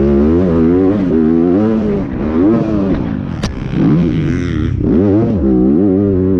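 Motocross dirt bike engine heard close up from the rider's own bike, its revs climbing and dropping again and again as the rider works the throttle and gears around the track. A single sharp click sounds about halfway through.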